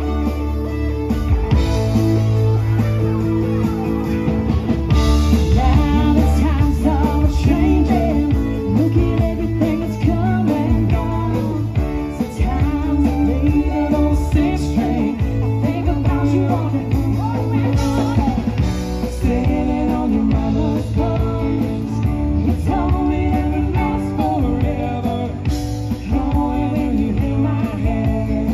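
Live rock band playing, with electric guitars, drum kit and keyboards. A woman sings lead into a microphone, her voice coming in several seconds in.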